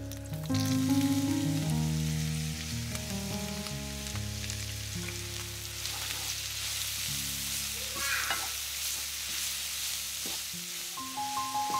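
Sliced onions sizzling in hot fat in a skillet. The sizzle starts about half a second in as they hit the pan, and they are then stirred and turned with a wooden spatula.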